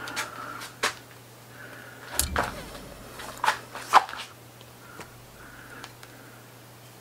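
Scattered sharp clicks and knocks of a steel wood-carving gouge being handled and worked against a log, the loudest a pair of clinks about three and a half and four seconds in.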